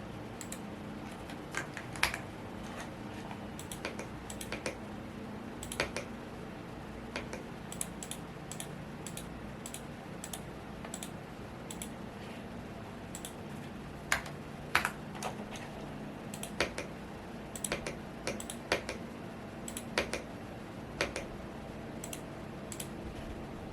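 Typing on a Womier S-K71 mechanical keyboard: irregular keystrokes, sometimes several in quick succession, over a steady fan hum.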